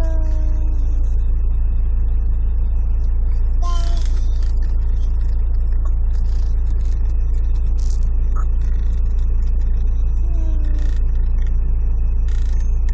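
Car engine idling with a steady low rumble, heard from inside the cabin. A few brief falling voice sounds come at the start, about four seconds in and about ten seconds in.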